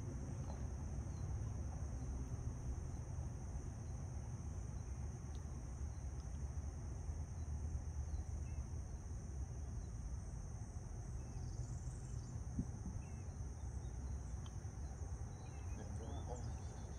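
Steady high-pitched chorus of insects droning in the trees, over a low steady rumble, with a few faint bird chirps.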